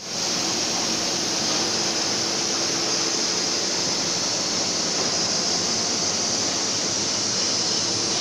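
Steady, even hiss of running workshop machinery, brightest in the high range, with a faint low hum underneath.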